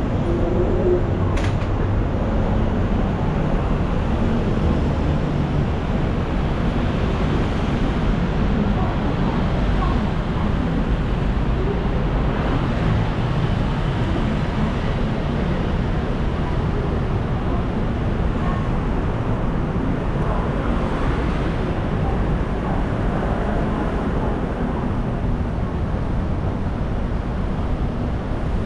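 Busy city street ambience: a steady rumble of road traffic with people talking as they pass, and one sharp click about a second and a half in.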